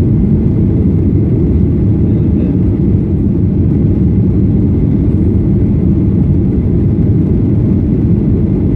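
Steady low drone of a Boeing 737-800's CFM56-7B turbofan engines and rushing airflow, heard from inside the passenger cabin during the climb after takeoff.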